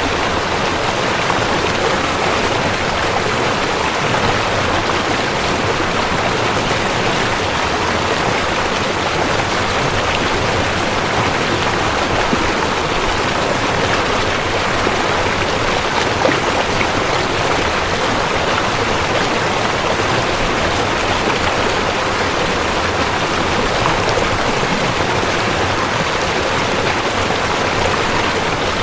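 River water flowing, a steady, unbroken rushing.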